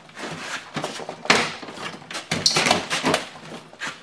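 1996 Buick LeSabre's plastic door trim panel knocking and creaking as it is worked upward off the door. It is an irregular string of knocks, with a sharper one about a second in and a brief squeak near the middle.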